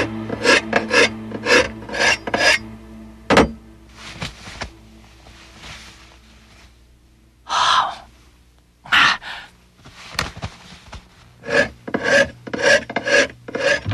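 A cook's kitchen knife working in quick runs of short, sharp strokes, about three or four a second: a burst at the start, a few single strokes in the middle and a longer run near the end.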